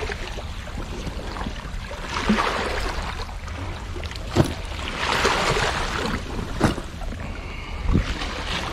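Small waves washing and splashing over seaweed-covered rocks at the water's edge, over a steady low rumble. Two longer surges of wash come through, and a few sharp knocks sound in the second half.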